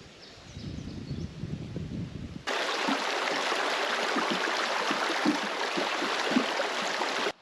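A low rumble for the first couple of seconds, then, after an abrupt cut, the steady rushing of a mountain stream or cascade, which stops suddenly near the end.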